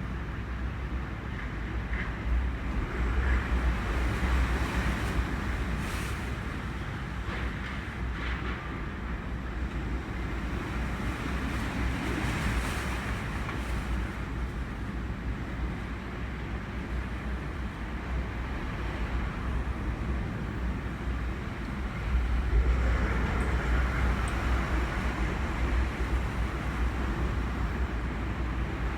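Typhoon wind blowing in gusts, with a heavy low rumble of wind buffeting the microphone. The gusts swell a few seconds in, again near the middle, and most strongly from about three quarters of the way through.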